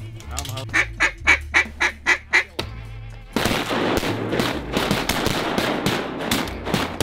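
A duck call blown in a quick run of about seven loud, evenly spaced quacks, then, about halfway through, a sudden dense rush of noise full of quick sharp flutters.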